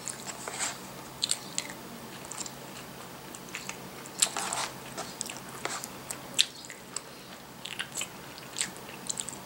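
A person eating breaded pork cutlet curry close to the microphone: chewing and biting, with scattered short clicks and scrapes from a plastic spoon in a plastic takeout tray.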